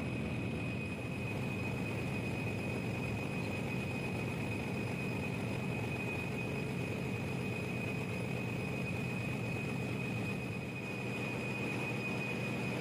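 Steady engine-room drone of a large generator engine running, with a steady high whine over the noise.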